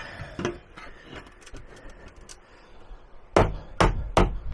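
A table leg being fitted into place: light clunks and rubbing, then three sharp knocks about half a second apart near the end as it is knocked home.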